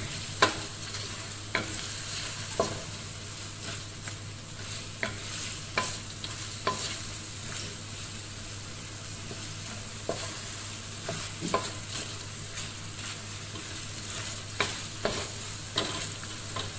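Chicken pieces sizzling as they stir-fry in a wok, turned with a wooden spatula. The spatula's scrapes and knocks on the wok come every second or so over the steady sizzle.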